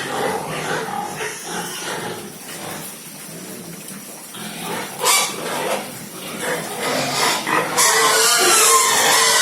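Pigs squealing and calling: quieter for the first few seconds, a sharp loud cry about five seconds in, then loud, continuous high calls from about eight seconds on.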